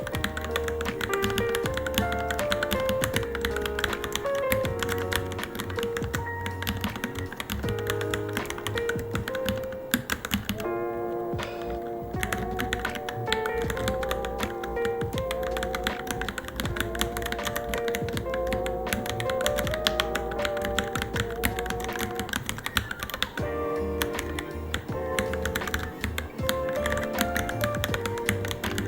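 Fast, irregular typing on a Varmilo Minilo mechanical keyboard, a steady stream of key clicks. Background music with a melody of held, wavering notes plays throughout.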